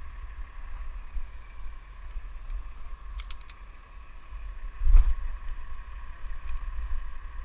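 A steady mechanical hum with a whine runs throughout over a low rumble. A few metal clinks of climbing hardware come about three seconds in, and a single sharp thump, the loudest sound, comes at about five seconds.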